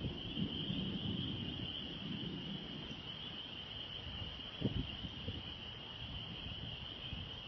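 Wind gusting against the microphone in a fluctuating low rumble under a steady high-pitched chorus, with a brief thump about four and a half seconds in.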